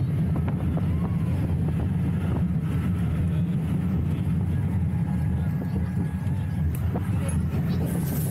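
Zierer Tivoli coaster train running along its steel track: a steady low rumble of the wheels.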